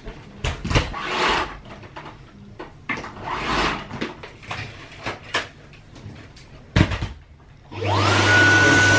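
Canister vacuum cleaner being handled: knocks and clatter as it is carried and set down. Near the end its motor switches on, a whine rising quickly and settling into a steady high tone over a loud rush of air.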